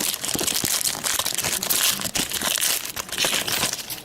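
Crinkling of a foil trading-card pack wrapper being torn open and handled, a dense crackle that stops near the end.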